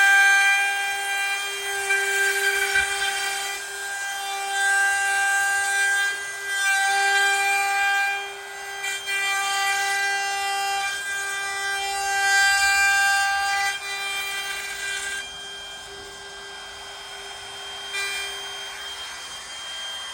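Electric router with a bearing-guided straight bit running at a steady high-pitched whine as it cuts a butt-hinge recess into the wooden edge of a door. The level swells and eases as the bit bites into the wood and is quieter over the last few seconds.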